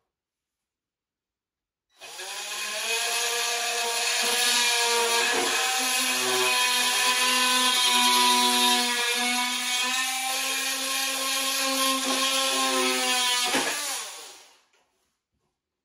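Cordless oscillating multi-tool cutting through a cabinet's wooden floor panel: a steady buzz that starts about two seconds in, runs for about twelve seconds and winds down near the end.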